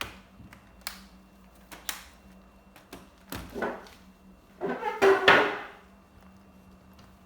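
Hands handling a laptop during a repair: a few sharp clicks about a second apart, then louder scraping and clattering of plastic around the middle, the loudest just past halfway.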